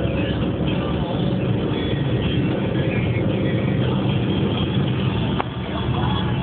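Cabin noise of a Renault Megane 1.5 dCi four-cylinder turbodiesel at high motorway speed: a steady drone of engine, wind and tyres. A short knock sounds about five seconds in.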